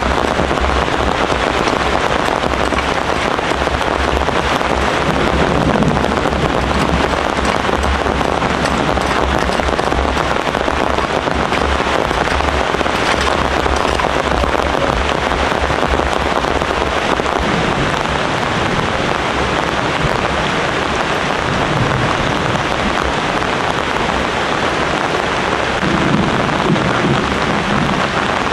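Heavy rain falling steadily, a loud, even hiss with no break.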